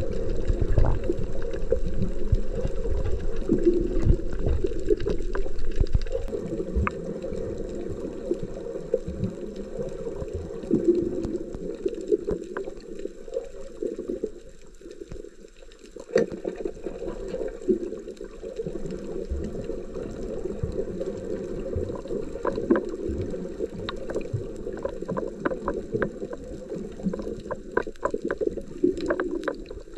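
Muffled underwater sound of water movement and gurgling, heard through a camera housing, with scattered sharp clicks. It is louder in the first few seconds, near the surface.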